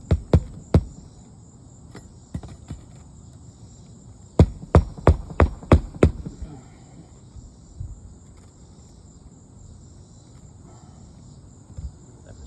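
Hammer striking nails into roof shingles: three blows at the start, then a quick run of six blows about four seconds in. A steady high insect trill runs underneath.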